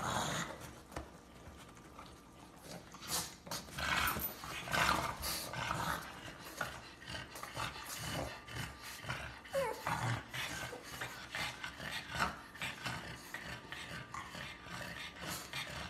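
Pugs growling and grunting in short, irregular sounds on and off, with some panting.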